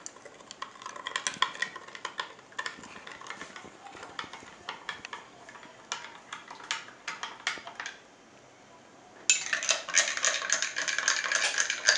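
A spoon stirring in glass cups and clinking against the glass in quick runs. After a brief pause about eight seconds in, it resumes faster and louder.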